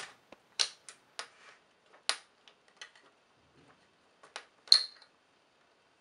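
Flimsy plastic height-adjustment foot on the underside of a Unicomp UltraClassic (Model M-style) keyboard being handled and worked off the case: a scattered string of sharp plastic clicks and taps. The loudest, about three-quarters in, has a brief ring.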